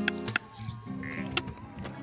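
Acoustic guitar strummed, a few chords with their notes left ringing between strokes.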